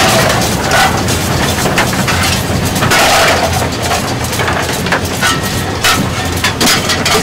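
Cab noise of a small Orenstein & Koppel 0-4-0 steam locomotive under way, with the scrape of a coal shovel and irregular sharp knocks as coal is shovelled into the firebox.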